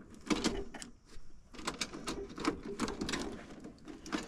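Irregular clicking and rattling of small parts and wiring being handled at an air handler, over the low steady hum of the running blower.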